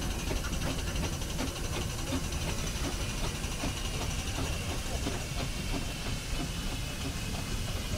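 A steam road roller running: a steady low rumble under steam hissing, with many light rapid beats.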